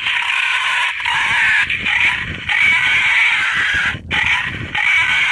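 Wild boars calling in a loud, continuous chorus of squeals: a recorded feeding call used by hunters to draw boars in. It breaks off briefly about a second in and again about four seconds in.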